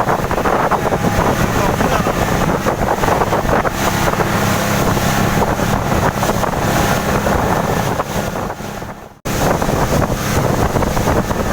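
A boat engine running steadily under way, with wind buffeting the microphone. About eight seconds in the sound fades briefly, then it comes back abruptly a second later.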